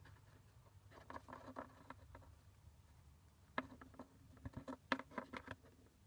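Chinchilla gnawing a nut: faint, quick crunching clicks in two bursts, one about a second in and a longer one from about three and a half seconds in.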